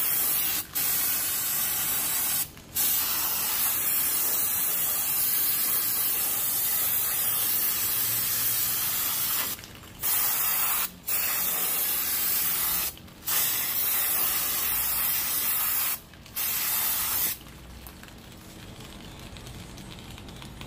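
Aerosol can of brake cleaner spraying in long hissing bursts onto a rear brake hub and backing plate, broken by about six short pauses. The spraying stops about three seconds before the end.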